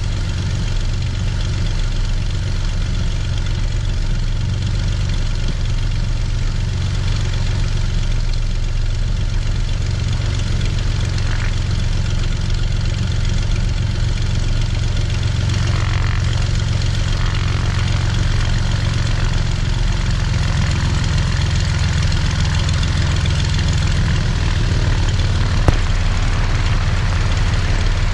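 Cessna 182's piston engine and propeller running steadily at low taxi power as the plane is marshalled on the ramp: a constant deep hum. Near the end there is a single sharp click.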